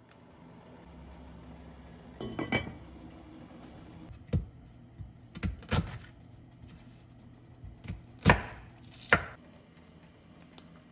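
Kitchen knife cutting an onion on a wooden cutting board: a series of irregular sharp knocks as the blade goes through and strikes the board, the loudest about eight seconds in.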